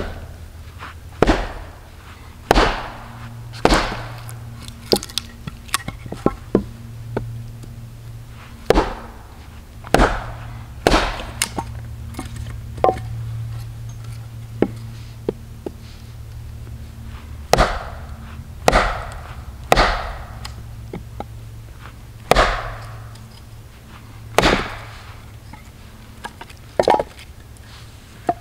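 Small hatchet chopping and splitting short lengths of branch wood on a log: sharp knocks in irregular runs of two to four, about twenty in all, some ringing briefly.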